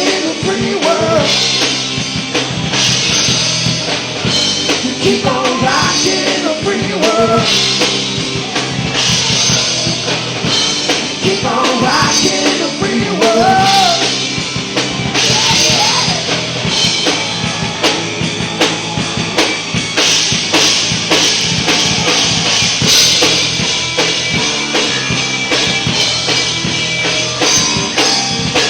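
Live rock band playing, with the drum kit and its cymbals prominent over a steady bass and wavering melodic lines.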